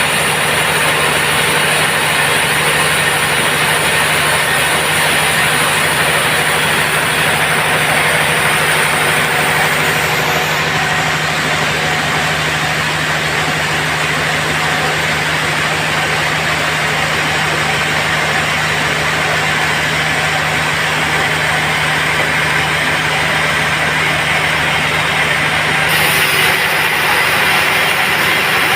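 Sawmill band saw running steadily, with a constant low hum under a broad hiss. The high end of the hiss changes about ten seconds in and again near the end.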